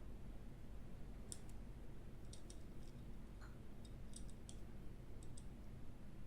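Faint small clicks and taps of a hand tool on tiny smartphone parts and screws during reassembly, in a few quick clusters over a steady low hum.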